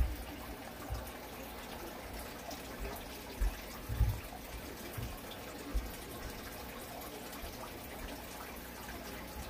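Steady bubbling and splashing of aquarium water from rising air bubbles breaking at the surface, with a few dull low thumps, the loudest at the very start and about four seconds in.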